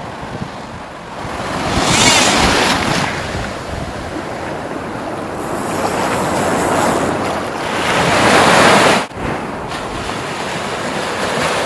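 Ocean surf washing and breaking around a wader, with wind buffeting the microphone. It swells louder twice, about two seconds in and again around eight to nine seconds, then drops off suddenly for a moment.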